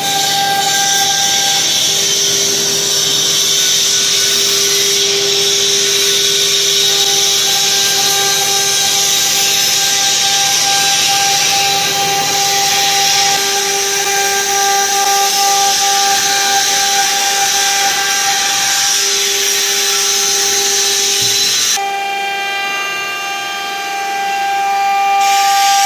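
CNC stone engraving machine running: a steady whine over a loud hiss. The tone changes about 22 seconds in.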